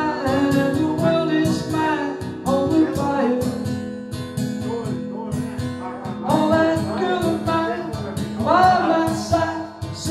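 Solo male singer accompanying himself on a strummed acoustic guitar. Sung phrases come and go over steady strumming.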